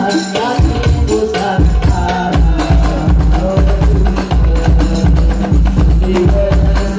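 Loud music with a heavy, steady bass beat of about two to three thumps a second and a melody over it, played through a large sound system.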